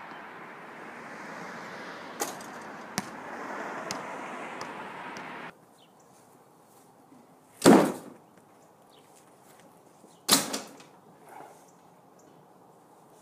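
Outdoor wind and street noise with a few sharp knocks, then two loud thuds about two and a half seconds apart, each ringing on briefly: a basketball striking hard surfaces.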